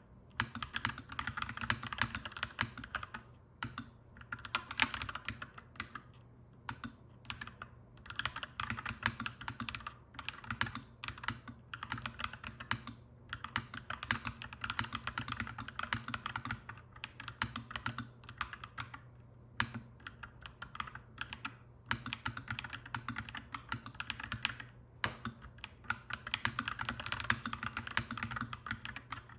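Clacky mechanical keyboard being typed on in fast runs of keystrokes, with brief pauses every few seconds. A steady low hum sits underneath.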